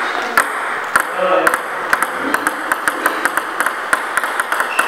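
An orange celluloid Donic three-star table tennis ball and a white Xushaofa plastic ball, dropped together, bouncing on a table tennis table. Two overlapping series of light clicks come closer and closer together as the bounces die down. The white plastic ball bounces higher than the celluloid one.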